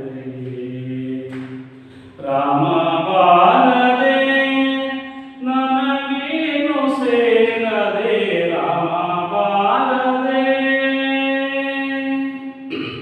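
A man singing a Kannada verse unaccompanied in long, drawn-out notes that glide up and down, in a chanting style, in three phrases with short breaths between them.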